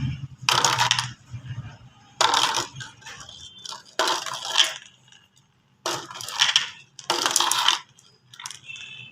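Marbles clattering down a plastic marble-run track in five loud rattling bursts, each under a second and one to two seconds apart, with a smaller clatter near the end.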